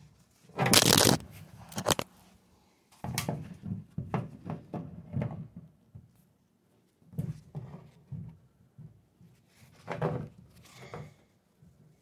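Steel pedal wrench being fitted onto a bicycle pedal and worked to loosen it from the crank arm: irregular clusters of metal clicks, knocks and scrapes mixed with the rub of gloved hands, with the loudest, a scraping rustle about a second long, near the start.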